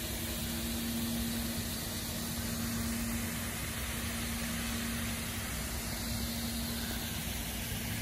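Steady hiss with a low, even hum beneath it, from the garden's fog-misting system spraying artificial mist.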